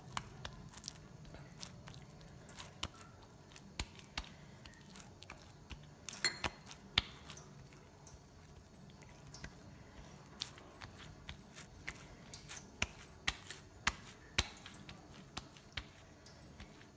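Soft, sticky almond burfi dough squelching as ghee-greased hands squeeze and roll it into a ball, with many irregular small clicks and smacks.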